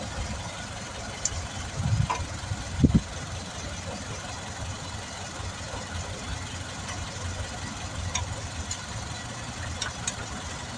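A food bus's engine running steadily with a low rumble, with two short thumps about two and three seconds in.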